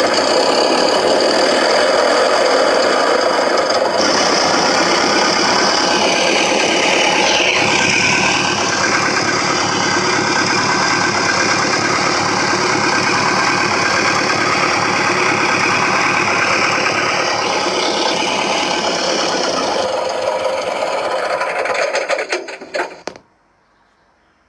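Simulated airplane engine sound from an RC model sound system, played through speakers mounted on a dense foam backing board. It runs loud and continuous, with a brief swoop in pitch about eight seconds in, then cuts off suddenly near the end.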